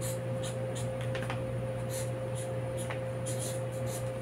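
Faint short scratches of a felt-tip marker writing on pattern paper, over a steady electrical hum.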